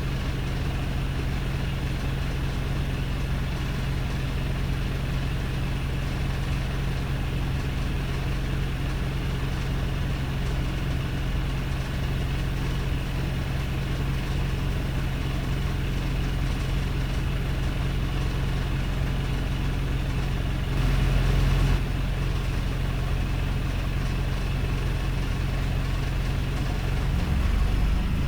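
Wrightbus StreetLite bus's Mercedes-Benz (Daimler) OM934 four-cylinder diesel idling steadily, with a rough idle. There is a brief louder surge about three-quarters of the way through.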